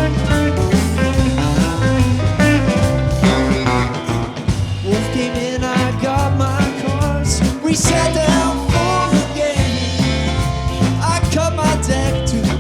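Live band playing: electric guitar notes bending over bass and drum kit.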